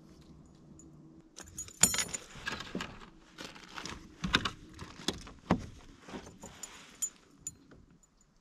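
Fishing tackle being handled, jingling and clattering in a run of irregular clinks and rattles; the sharpest clack comes a little under two seconds in.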